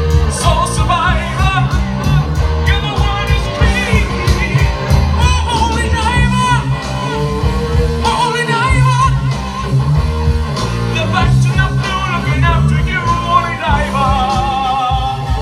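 Live rock band: a man singing into a microphone over electric guitar, bass guitar and drums. Near the end the singer holds a wavering note.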